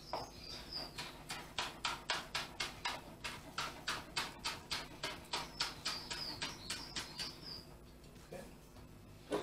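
Chef's knife chopping chives on a plastic chopping board: a steady run of light taps, about four a second, that stops about eight seconds in.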